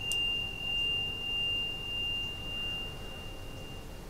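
A single high, pure ringing tone held steady and fading out about four seconds in, with a faint click near the start, over a low background hum that gently swells and sinks.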